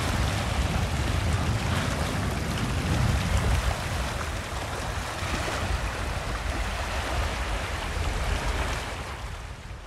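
Wind rushing and buffeting over the microphone, a steady rough rumble that eases a little near the end.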